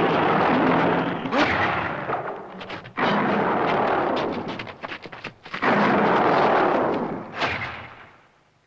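Three explosion sound effects one after another, each hitting suddenly and dying away over two to three seconds.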